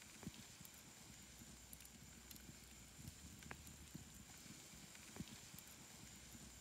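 Near silence with faint, scattered crackles and pops from the cooking fire beneath frogs grilling on a banana leaf in a stone stove.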